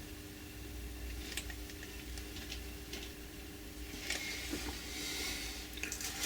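Light, scattered clicks and taps from hands handling the opened dehumidifier's casing and parts, over a faint steady hum.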